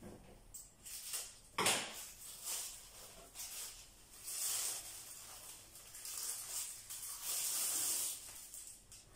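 Black plastic bag strips rustling and crinkling as they are handled, in bursts, loudest about four to five seconds in and again around seven to eight seconds in. A single sharp snap about a second and a half in is the loudest sound.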